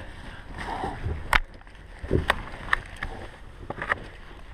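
Scuffing and scraping of a person crawling on their belly through a narrow tunnel, with a handful of sharp knocks as their body and gear touch the sides.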